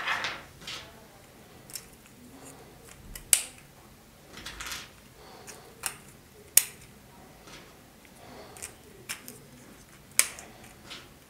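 Small 3D-printed plastic connector pins and gear pieces being handled and pressed together: a series of sharp plastic clicks, three of them loud and about three seconds apart, with softer rustling of the parts in between.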